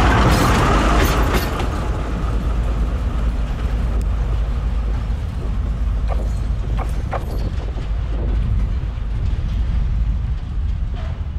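Hungarian-built D1 diesel multiple unit rumbling low and steady. It is loudest and fullest in the first two seconds, then settles to a steady diesel drone with a few sharp clicks around the middle.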